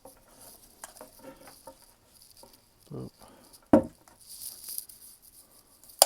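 Handling noises: light rustling and small ticks, a dull thump about three seconds in, a louder sharp thump just before four seconds, and a sharp knock at the very end.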